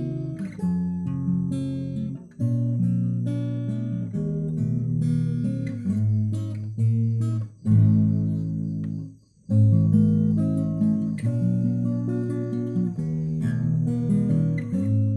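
Background music played on acoustic guitar, with a short break about nine seconds in.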